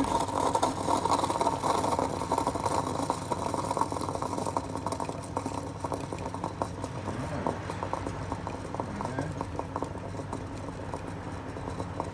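Hot water spurting and spluttering from an Atomic stovetop espresso maker's group head into its aluminium jug, with many small pops and crackles. It is loudest for the first few seconds, then eases off.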